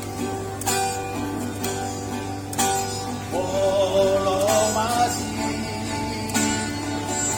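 Music: a guitar plays plucked and strummed notes, and a man's singing voice comes in about three seconds in, holding long, wavering notes.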